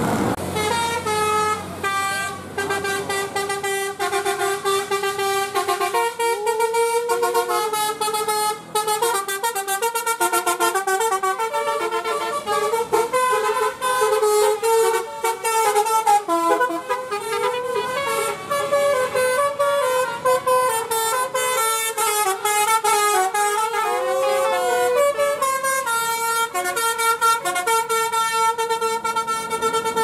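Tour buses' "telolet basuri" melodic horns playing a fast tune of changing notes, with a few sliding notes.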